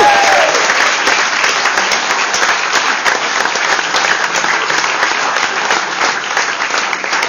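An audience applauding steadily, with a whoop of cheering at the very start.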